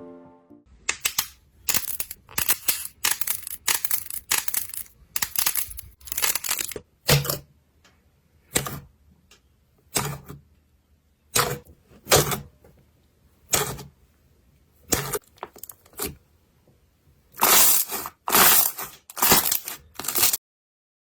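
Slime being squeezed and poked by hand, giving a run of short, sharp, noisy bursts: spaced about a second or more apart through the middle, and bunched close together near the end.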